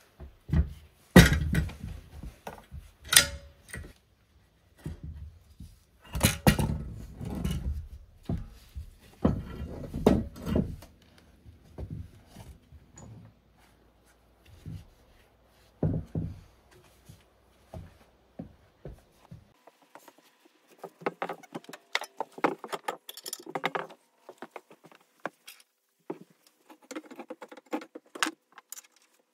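Irregular clanks and thunks of a riding mower's subframe being manoeuvred and fitted into its mounting points, the loudest knocks in the first half, then a run of lighter clicking and rattling in the last third.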